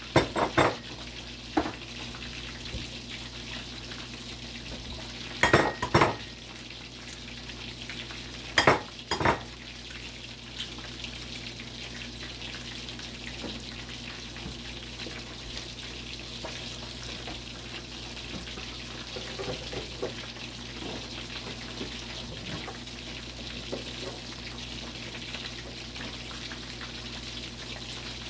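Chicken leg quarters frying in hot oil, a steady sizzle. A few sharp clinks in the first ten seconds, two pairs of them close together.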